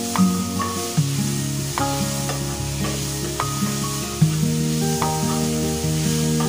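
Diced tomato and other ingredients sizzling in a frying pan as a spatula stirs them, under background music of short struck notes over held lower notes.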